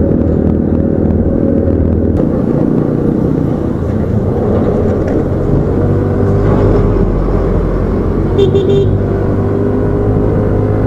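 Yamaha NMAX 155 scooter engine running steadily while riding along the road. About eight and a half seconds in there is a quick series of short horn beeps.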